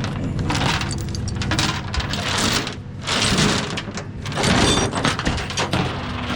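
Tie-down chains rattling and clinking in several separate bouts, over the steady hum of an idling engine.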